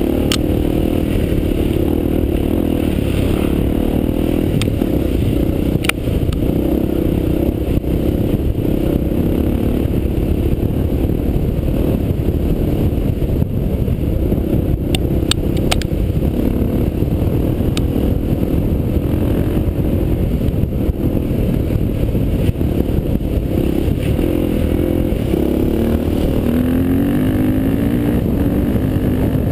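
Honda XR400's air-cooled single-cylinder four-stroke engine running under load on a trail ride, its revs rising and falling through the gears, with a few sharp knocks over the rough ground.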